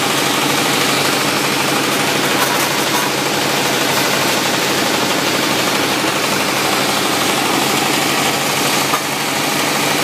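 Sawmill engine running steadily, an even mechanical noise.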